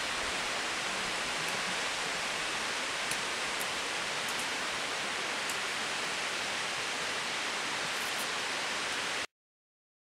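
Steady rushing of a 200-metre waterfall falling down a rock cliff, cutting off suddenly a little before the end.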